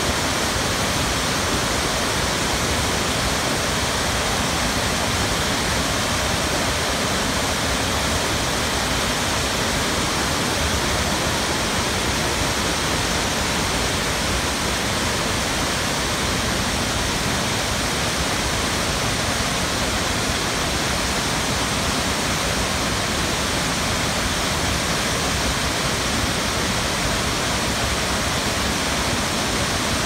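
Tall mountain waterfall pouring down a rock face: a steady, loud rush of falling water that holds even throughout.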